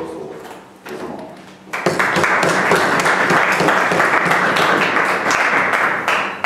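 Audience applauding: a dense patter of clapping that starts suddenly about two seconds in and stops just before the end.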